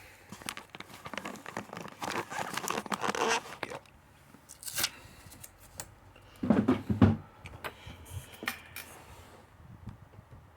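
Hand-handling noises of a padlock and its keys being put down and arranged: rustling, scattered clicks, and a dull knock about two-thirds of the way through.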